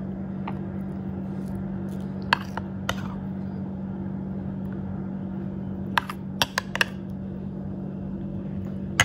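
A metal spoon clinks against a ceramic plate as pink custard sauce is spooned over a slice of pudding. There are two clinks a couple of seconds in, a quick run of clinks about six seconds in and one more at the end, over a steady low hum.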